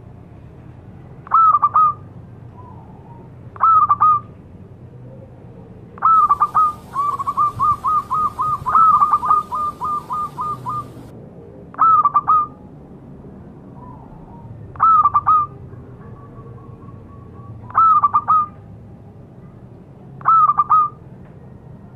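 Zebra dove (perkutut) cooing: short cooing phrases repeated every two to three seconds, with a quick run of short coos, about four a second, in the middle.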